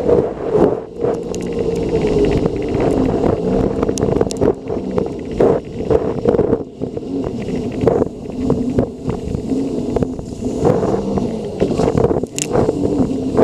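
Sea-Doo personal watercraft engine running under way, its note rising and falling as the throttle changes, with irregular knocks and splashing from the hull crossing choppy water.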